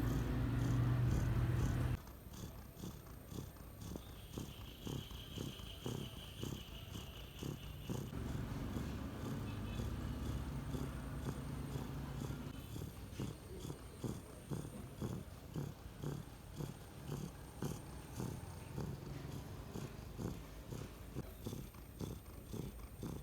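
Sleeping domestic cat purring loudly, a low rumble that pulses about twice a second with its breathing. A louder low rumble in the first two seconds cuts off suddenly.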